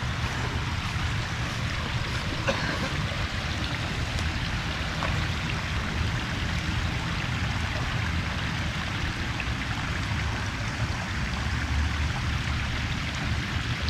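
Water running steadily down the streams and waterfalls of a backyard koi pond.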